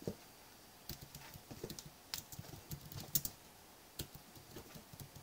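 Faint, irregular clicking of typing on a computer keyboard, as a search term is entered.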